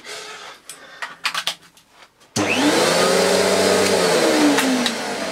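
Panasonic MC-E42N canister vacuum cleaner motor switched on about two seconds in. It starts with a rising whine, runs steadily for a couple of seconds, then falls in pitch as it is switched off and winds down. It is running on the fuse under test, which shows the fuse is good. Before it come a few light clicks and knocks from handling the plug.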